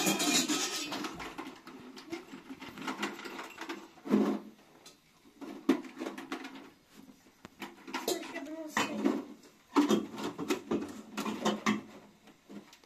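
Voices talking in a small room, with clinks and clatter of a metal kettle and glassware being handled. A loud, noisy burst comes right at the start.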